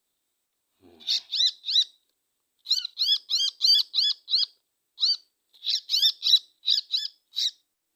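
Small bird calling close by in quick runs of short, sharp chirps, about three a second.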